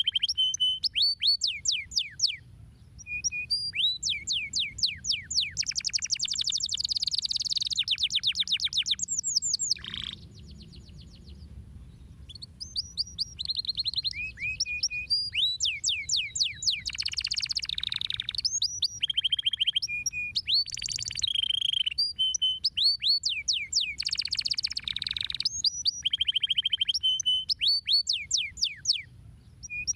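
Domestic canary singing: fast trills of rapidly repeated downward-sweeping notes and rolling phrases, with a brief lull about ten seconds in before the song resumes.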